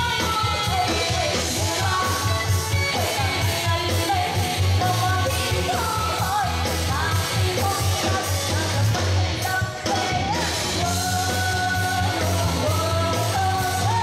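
Amplified live pop song: a woman singing into a microphone over band accompaniment with a steady, heavy beat.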